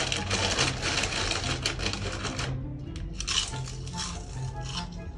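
Background music with a steady bass line. For the first two and a half seconds a dense crackling noise with many small clicks lies over it, then cuts off, leaving a simple melody over the bass.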